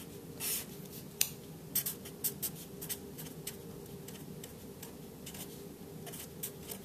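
Black marker pen writing on paper: an irregular run of short scratchy strokes and taps. A faint steady low hum runs beneath.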